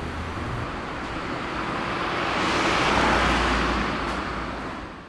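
Road traffic noise with a vehicle passing, swelling to its loudest about three seconds in and then fading out.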